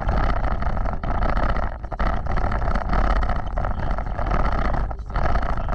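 Off-road vehicle driving, its engine running steadily under load over a low rumble, with a few brief dips in level.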